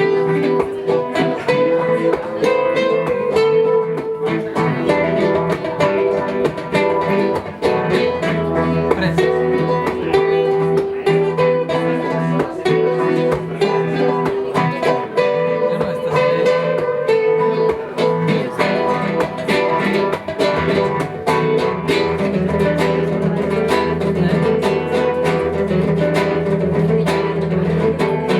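Music played on plucked guitar, with quick picked notes and strums over a steady bass line.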